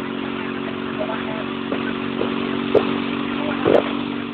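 A vehicle engine running steadily at an even pitch, with a few short knocks and rattles over it, the loudest a thump near the end.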